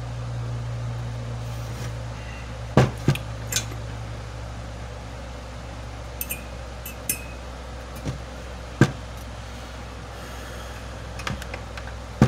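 Scattered metallic clicks and knocks as the sheet-metal frame of a salvaged cross-flow blower fan and its wiring are handled on a workbench, over a steady low hum.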